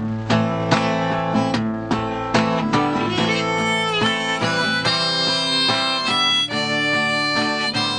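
Acoustic guitar strummed in a steady rhythm, joined about three seconds in by a harmonica played in a neck rack, carrying a melody over the strumming.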